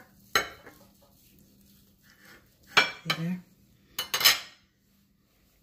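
A metal ladle and knife clinking and scraping against a ceramic plate while sauce is ladled over sliced pork: a few separate clinks with a short ring, then a scrape about four seconds in.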